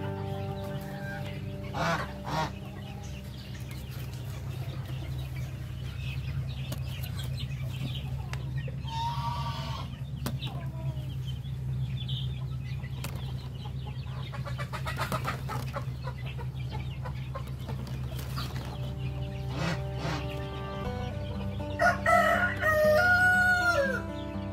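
Domestic chickens clucking and calling, with a short call about nine seconds in and a loud, drawn-out call near the end.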